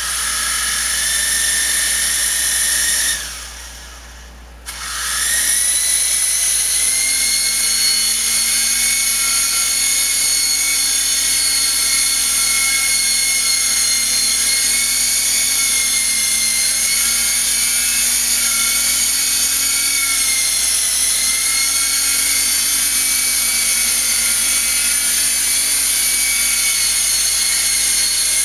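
Syma S032 toy RC helicopter's electric motor and rotor blades spinning up with a high-pitched whine. It cuts out for about a second and a half a few seconds in, then starts again and runs steadily, its pitch wavering slightly as it lifts off and hovers.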